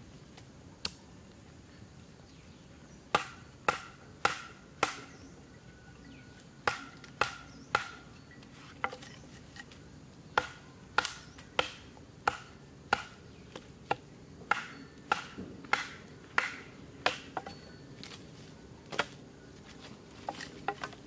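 A large knife chopping into an upright green bamboo stalk to split it. There is one strike about a second in, then a long series of sharp chops, about two a second in short runs, each with a brief ringing tone.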